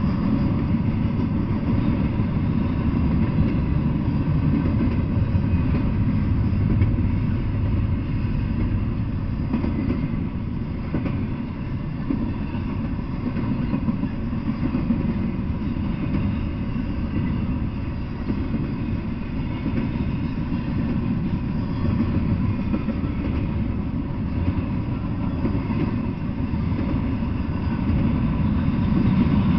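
Double-stack intermodal freight train passing, its steel wheels running on the rails in a steady noise.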